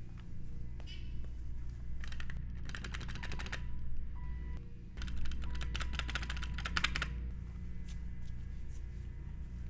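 Two runs of rapid, irregular clicks, about a second and a half and two seconds long, over a steady low hum.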